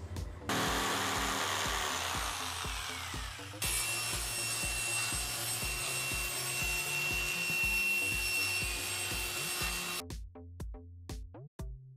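Table saw ripping a thin plywood panel: an even cutting noise with a steady high whine, for about six seconds until it cuts off suddenly. Before it comes about three seconds of a rougher sawing noise, and background music with a steady beat runs throughout, alone at the end.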